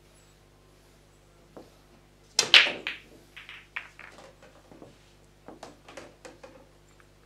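Pool balls knocking together as they are gathered and racked for 9-ball. There is one loud clack about two and a half seconds in, then a run of lighter clicks as the balls settle into the rack.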